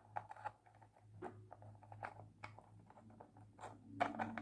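Faint, scattered clicks and taps of small keys and wooden pieces being handled and fitted into a wooden puzzle box, busier near the end, over a steady low hum.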